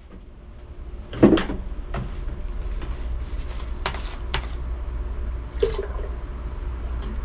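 A few sharp knocks and clunks of hard objects being handled, the loudest about a second in, over a steady low hum.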